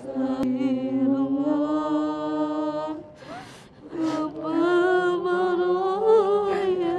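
A single unaccompanied voice chanting long, drawn-out notes in two phrases, with a pause for breath about three seconds in.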